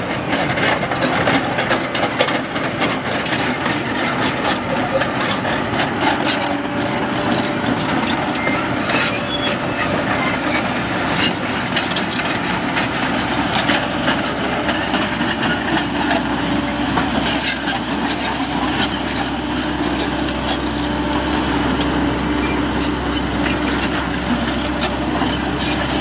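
Caterpillar 312C hydraulic excavator tracking over dirt: its diesel engine running steadily under a constant clatter of steel track links, with many quick clanks and knocks.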